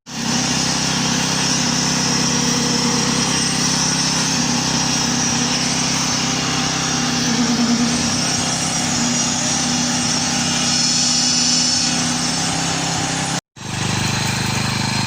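Engine of construction machinery running steadily under load with a constant hum. The sound drops out for a moment about 13 seconds in, then resumes.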